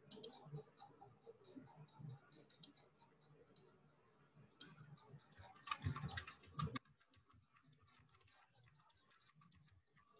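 Faint clicking of computer keyboard keys being typed, several a second with a short pause in the middle. It stops about seven seconds in, leaving near silence.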